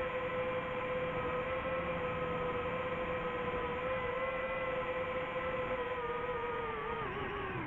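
DJI FPV drone's motors and propellers humming at a steady pitch while it hovers. Near the end the pitch dips briefly and then wavers as the throttle changes.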